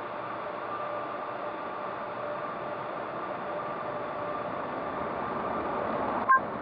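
Automatic car wash running, heard from inside the car: a steady hiss of water spray and blowers with a faint steady hum. A single sharp click comes near the end.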